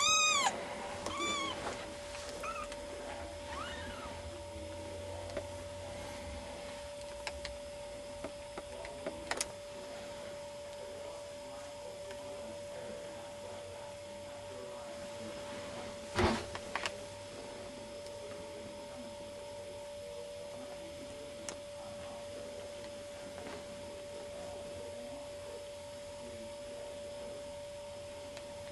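A kitten mewing, a few thin high-pitched mews that fall in pitch, loudest at the start and fading out within about four seconds. After that a steady hum runs on, with a single thump about 16 seconds in.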